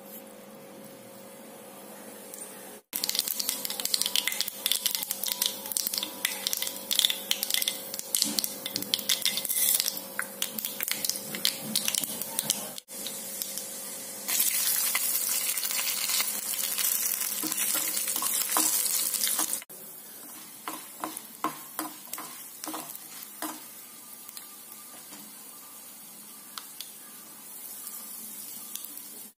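Mustard seeds spluttering and popping in hot oil in a steel kadai, a dense run of sharp crackles. After a cut, cashew nuts frying in the oil give a louder steady sizzle, which drops to a quieter sizzle with occasional pops for the rest. A faint steady hum lies underneath the first two-thirds.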